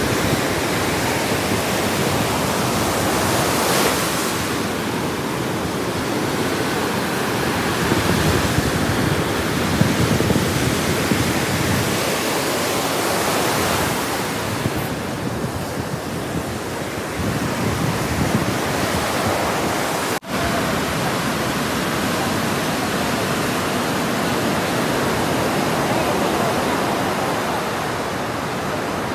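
Heavy surf breaking on a sandy beach in a rough sea: a steady, unbroken rush of waves, with a brief dropout about two-thirds of the way through.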